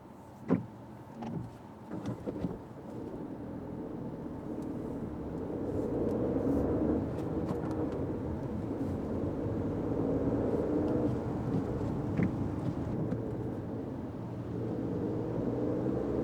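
Fiat 500X pulling away from a standstill, with engine and road noise building over a few seconds into a steady low rumble. A few short knocks come in the first couple of seconds.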